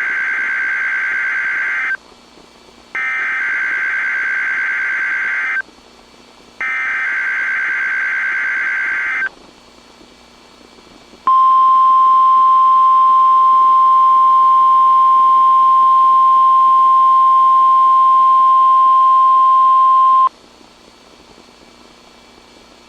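NOAA Weather Radio SAME header: three bursts of warbling digital data with short gaps between them, followed by the steady 1050 Hz warning alarm tone held about nine seconds. It cuts off to low receiver hiss. This is the weekly test of the warning alarm.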